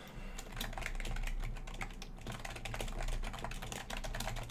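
Typing on a computer keyboard: a quick, uneven run of key clicks over a low steady hum.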